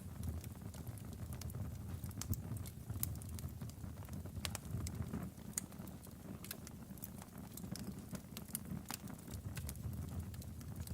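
Log fire burning in a fireplace: scattered sharp crackles and pops from the burning wood over a steady low rumble of the flames.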